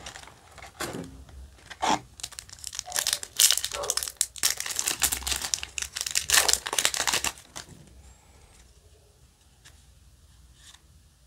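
Foil Yu-Gi-Oh! booster pack wrapper crinkling as it is handled and torn open, a run of sharp rips and crackles that stops about two-thirds of the way in.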